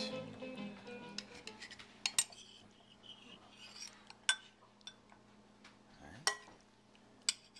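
Metal serving spoon and fork scraping and clinking against a ceramic serving dish as roasted red peppers are served out: a few scattered sharp clinks, the loudest about two and six seconds in. Guitar music fades out at the very start.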